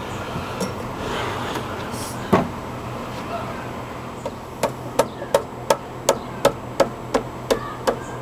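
Hammer striking deck lumber: a single knock about two seconds in, then a steady run of about ten blows, roughly three a second, over the second half.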